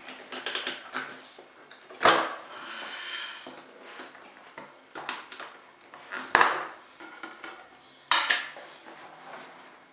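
Clinks and knocks as the lid is taken off a Thumler's Model B rotary tumbler barrel holding brass cases and ceramic media, with sharp knocks about two, six and eight seconds in.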